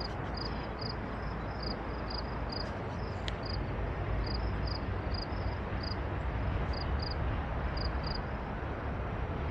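Insects chirping in short, evenly repeated high pulses over a steady low rumble.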